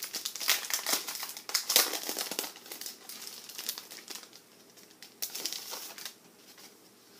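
Paper rustling and crinkling as a kraft paper envelope and a mounted card are handled and turned over, busiest in the first couple of seconds with another flurry about five seconds in.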